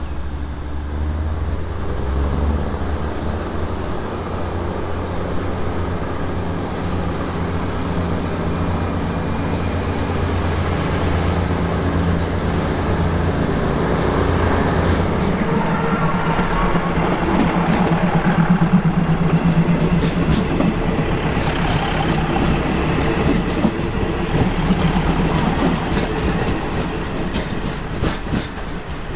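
Diesel multiple-unit railcars running steadily, then growing louder as the set pulls out and passes close by. The wheels click over rail joints near the end.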